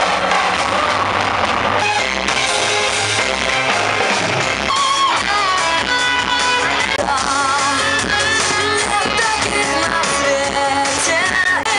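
Background music: an electronic track gives way about two seconds in to a rock song with singing.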